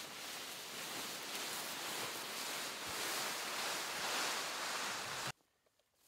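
Leafy maple branches rustling and swishing through grass as an armful of brush is gathered and dragged: a steady rustle that cuts off abruptly about five seconds in.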